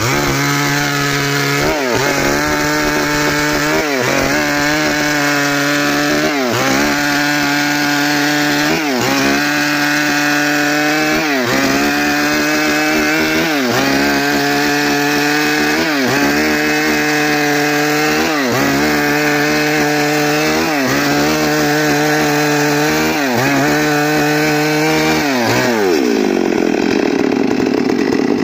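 Stihl chainsaw at full throttle cutting lengthwise along a log, its engine pitch sagging under load and recovering about every two seconds. Near the end the throttle is released and it drops to idle.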